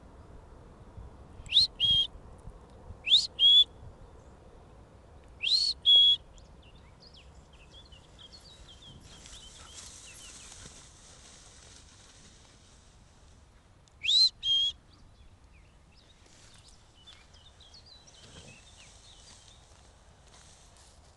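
A person whistling to call a dog: four loud two-part whistles, each a quick rising note followed by a short held note. Three come in quick succession, then one more after a pause.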